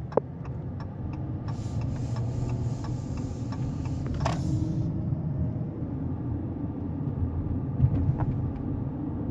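A car driving past: its road noise rises about a second and a half in and fades out about five seconds in, over a steady low rumble. A single sharp click sounds right at the start.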